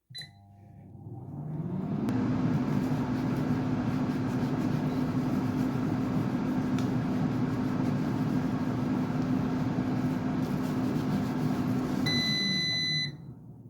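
Kenwood air fryer running: a short beep, then the fan spins up over a couple of seconds to a steady hum. About twelve seconds in it gives a longer beep and the fan winds down.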